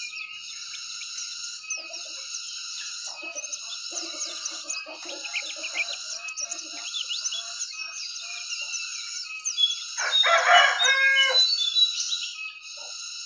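White-eye (pleci dakun) singing a continuous high, rapid twittering song, the kind played as a lure song to set a white-eye that has stopped singing back into song. A rooster crows loudly about ten seconds in.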